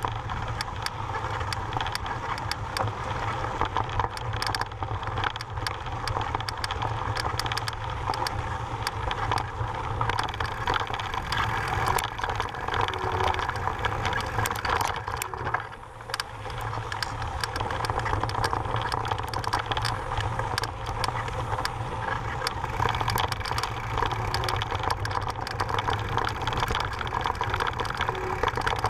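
Mountain bike riding over a loose, rocky trail: tyres crunching on gravel and stones, with the bike rattling and clicking over the bumps, over a steady wind rumble on the microphone. It goes briefly quieter about sixteen seconds in.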